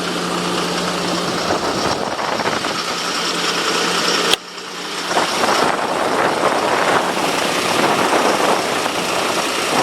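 Wind buffeting the microphone, a steady rushing noise over a low hum, broken by a sudden click and a brief drop about four and a half seconds in.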